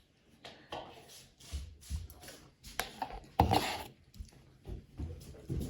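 Irregular rubbing and knocking noises, with a louder scuff about three and a half seconds in.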